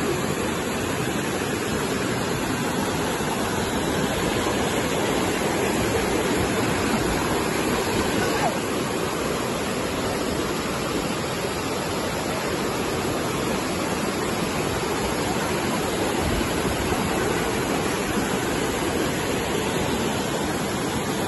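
A waterfall and the cascades below it: water rushing steadily over boulders in an unbroken wash of noise.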